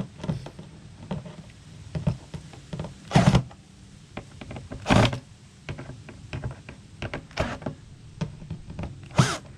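Clicks and knocks of hand work on a plastic Coleman cooler's lid hinge as its screws are tightened: many small scattered clicks, with three louder knocks about three, five and nine seconds in.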